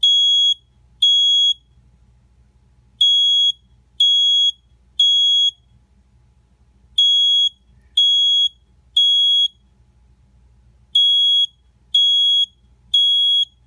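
Smoke detector sounding its alarm while its test button is held down: a high-pitched beep in the three-beep temporal pattern, three half-second beeps a second apart, then a pause, repeating every four seconds.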